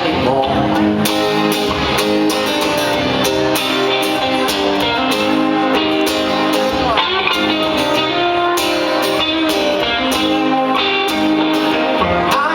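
Live band music: an instrumental passage led by strummed guitar over a steady beat, with no singing.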